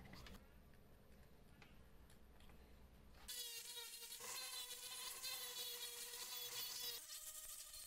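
Handheld rotary tool with a small sanding drum starts about three seconds in and runs with a high, steady whine as it sands a wooden block. Its pitch steps up near the end. Before it there are only faint handling clicks.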